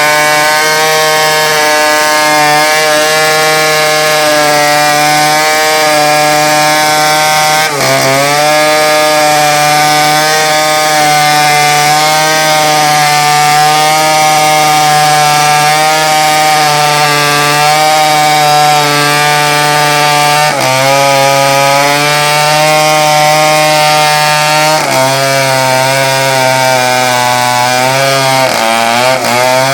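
Chainsaw running at high revs while cutting through a teak log, a steady buzzing drone. Its pitch sags briefly a few times as the chain bites under load, then recovers.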